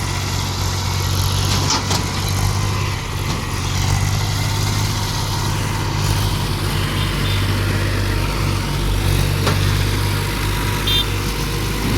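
A heavy diesel engine runs steadily with a low, even throb.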